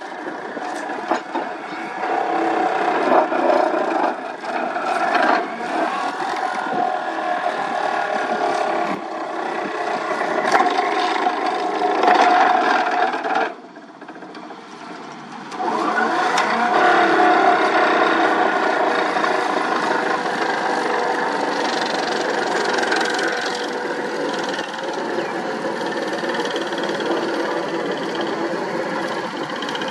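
Excavator-mounted vibratory hammer running on a steel sheet pile, driving it into the ground: a loud, steady mechanical drone over the excavator's diesel engine. A little before halfway it drops off for about two seconds, then comes back with a rising whine.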